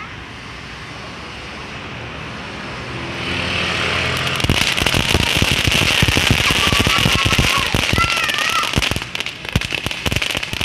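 Ground fountain firework spraying sparks: a hiss that builds over the first few seconds into a loud, steady rushing hiss, with dense crackling from about four seconds in.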